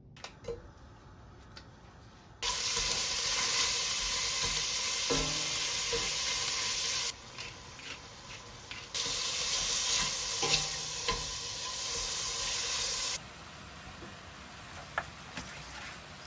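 Vegetables sizzling in hot oil in a pot while being stirred, with a few light knocks of the utensil against the pot. The sizzle starts and stops abruptly twice.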